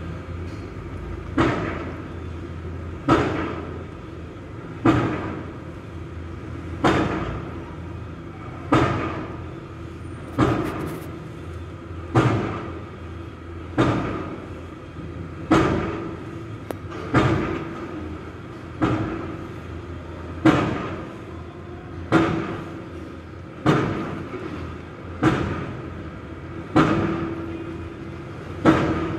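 Heavy machinery pounding at a regular pace, one heavy blow about every 1.7 seconds, each ringing briefly and dying away, over the steady hum of a diesel engine.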